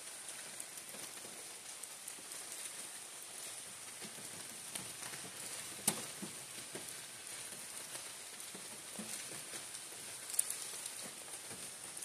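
Steady rain falling through a leafy forest canopy: a constant hiss dotted with small drip impacts, with two louder drops striking about halfway through and again near the end.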